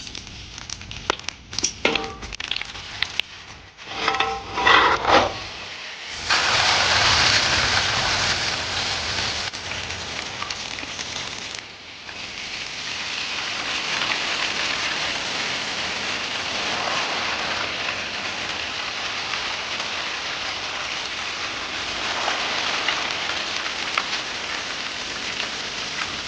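Clattering knocks of cookware, then chicken legs going into hot oil, which starts sizzling suddenly about six seconds in and goes on as a loud, steady sizzle.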